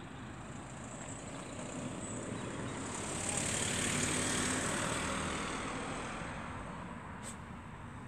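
A passing vehicle: a rush of noise that swells over a few seconds and fades away again, with a short click near the end.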